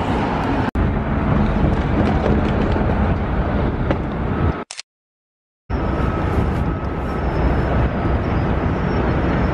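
Steady outdoor city background noise, mostly traffic, strongest in the low end, with a click under a second in. It drops to dead silence for about a second near the middle, then resumes.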